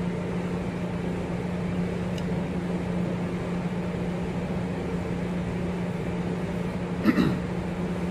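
Steady mechanical hum of kitchen ventilation, an even whir with one low tone under it. About seven seconds in there is a brief vocal sound from the man eating.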